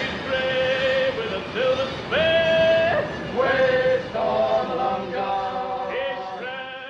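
Men's voices singing a sea shanty, with long held notes, fading out near the end.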